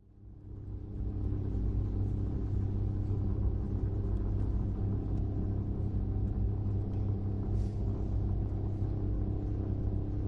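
Low, steady cinematic rumble with a held droning pitch, fading in over the first second or so and then holding level: trailer sound design under the opening titles.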